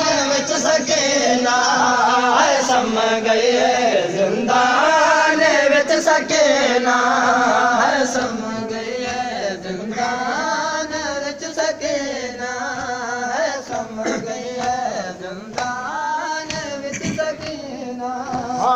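A group of men chanting a noha, a Shia mourning lament, in unison, their voices rising and falling through the verse. Loud for about the first eight seconds, then softer.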